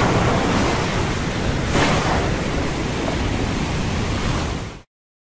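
Heavy rain pouring: a steady rushing hiss with a brief swell about two seconds in. It fades out and stops just before the end.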